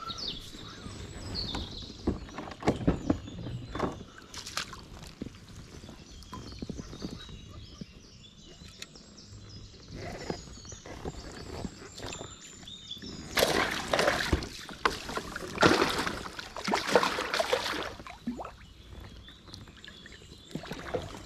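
Water splashing and sloshing in irregular bursts as a hooked pike is played and landed, loudest in a flurry of splashes a little past the middle.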